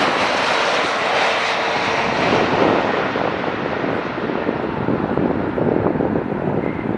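Airbus A321neo's jet engines, loud and steady, slowly fading as the aircraft moves away, the hiss at the top thinning out over the seconds.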